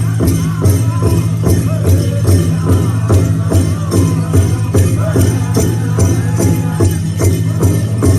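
Powwow drum and singers: a steady, evenly paced drumbeat under wavering voices singing a song.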